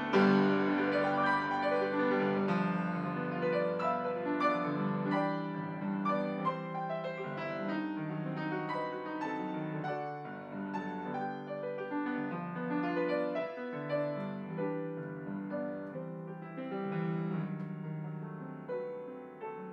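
Solo grand piano playing classical music: a loud chord struck at the start, then a continuous run of notes that grows gradually softer.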